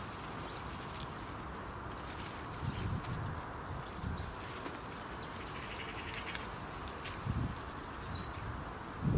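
Bramley apples being picked off the tree into a plastic carrier bag: soft low thumps about three seconds in, again near seven and a half seconds, and at the very end. Birds chirp faintly over steady outdoor background noise.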